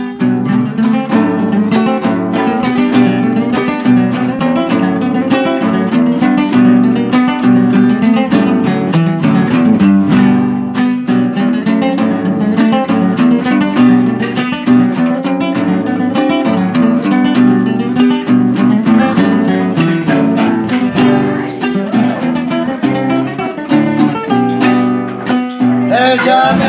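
Two acoustic guitars strummed and plucked together, playing the instrumental introduction of a Chilean tonada. A man's singing voice comes in near the end.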